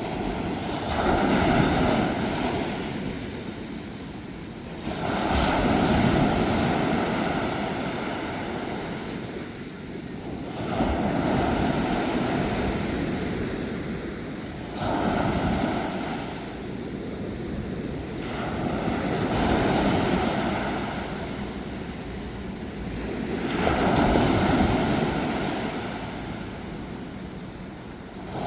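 Sea waves breaking on the shore, a surge of surf swelling and washing back about every four to five seconds, six times over.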